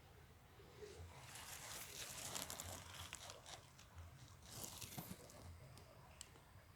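Faint rustling and crackling: a run of small crackles and rubbing noises between about one and five and a half seconds in.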